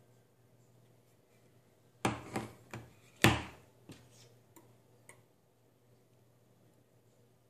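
Handling noise: a quick cluster of clicks and knocks about two seconds in, the loudest a second later, then a few lighter clicks. A faint steady low hum runs underneath.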